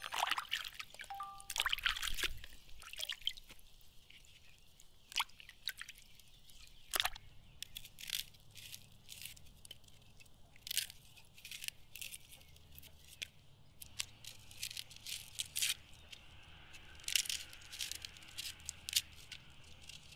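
Water splashing and dripping as button mushrooms are rubbed clean by hand in a basin of water, and the crisp crackle and scrape of a knife peeling the dry outer skin off an onion, heard as a string of sharp, irregular clicks.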